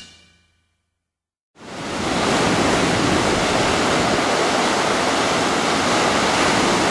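The tail of rock music fades out, then after about a second of silence the steady rush of ocean surf breaking comes in and holds.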